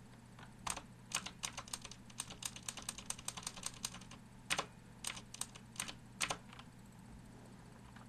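Fast typing on a Das Keyboard III Ultimate with clicky Cherry MX Blue switches, plate-mounted, under thin ABS keycaps. A quick run of keystrokes starts about half a second in and lasts about three seconds. After a short pause comes a looser group of strokes, and the typing stops about two-thirds of the way through.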